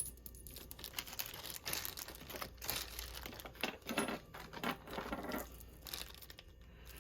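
Rustling and scattered light clicks of small parts and hardware being handled while building a battery pack from prismatic lithium cells.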